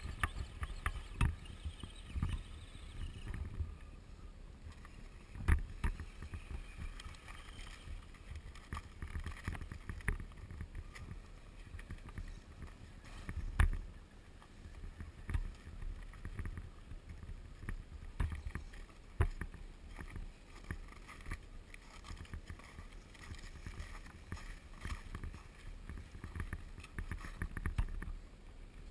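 1:10-scale RC crawler trucks driving over snowy rock, their electric motors and gears whining, with wind rumbling on the microphone and scattered knocks of tyres and chassis against the rock.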